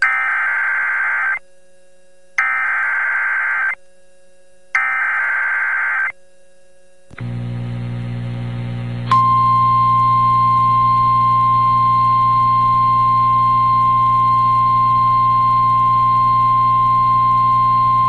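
NOAA Weather Radio alert: three bursts of SAME data tones, each about a second and a half long with about a second between them. After a short low hum, the steady 1050 Hz warning alarm tone starts about nine seconds in and holds, announcing a new warning broadcast.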